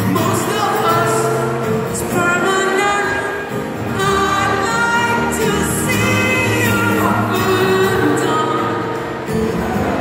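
Live acoustic guitar played with singing, a solo acoustic rock song performed on stage.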